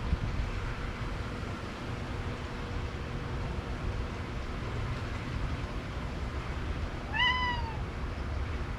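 Domestic tabby cat meowing once near the end, a single call that rises and then falls in pitch, over a steady low background rumble.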